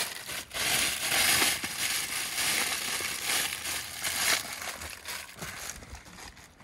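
Plastic shopping bag being rummaged and crinkled by hand, a loud, uneven rustle that starts about half a second in and eases off after about four seconds.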